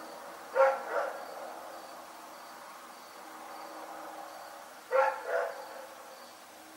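A dog barking in two quick pairs: a double bark about half a second in and another about five seconds in.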